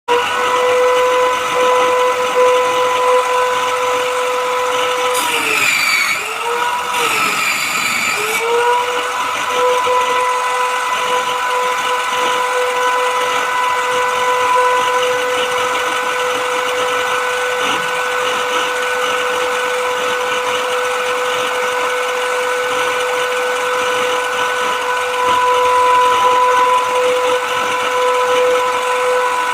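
Electric power tool motor running with a steady whine. About five seconds in, its pitch dips twice with a hiss, as if bogging under load while cutting into board, then recovers to the same steady whine.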